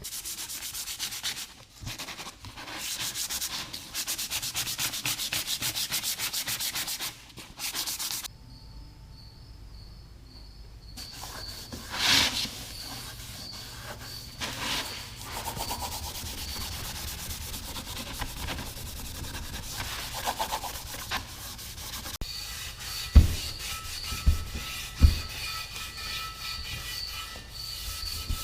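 Hand sanding of aluminum alloy wheel parts with abrasive paper and pad, fast rubbing strokes scuffing the surface before paint. A few sharp thumps sound late on.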